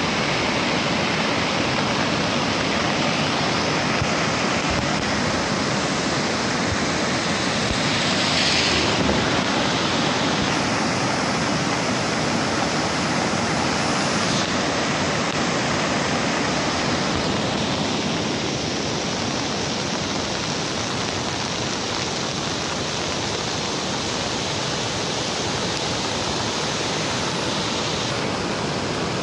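Swollen river in flood after heavy rain, a steady, loud rush of fast, churning muddy water. It briefly swells with a brighter hiss about eight seconds in.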